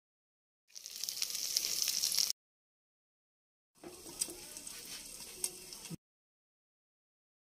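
Oil sizzling in a stainless steel frying pan of chicken keema, in two stretches that start and stop abruptly with dead silence between. In the second stretch an egg fries in the oil, with a couple of sharp pops.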